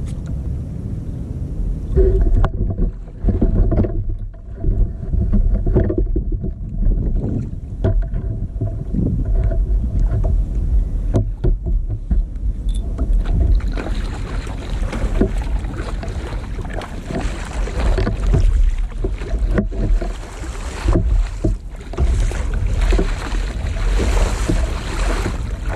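Wind rumbling on the microphone and water sloshing against a sit-on-top kayak's plastic hull on open sea. From about halfway on, a louder splashing of paddle strokes through the water joins in.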